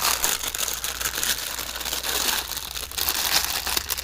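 Packaging crinkling and rustling continuously as the new replacement door handle is unwrapped.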